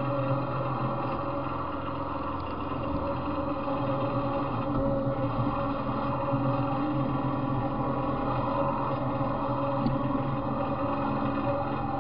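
Off-road riding mower's engine idling steadily.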